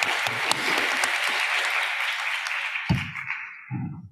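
Audience applauding, the clapping dying away near the end, with a couple of low thumps as it fades.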